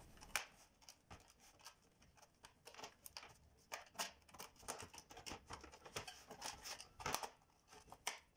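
Faint, irregular clicks and small snaps of plastic as a flat screwdriver pries the front bezel of an LG 24MT47D TV-monitor away from its rear case, working the retaining tabs along the bottom edge.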